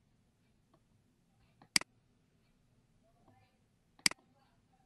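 Two sharp computer mouse clicks, about two seconds apart, over a faint steady low hum.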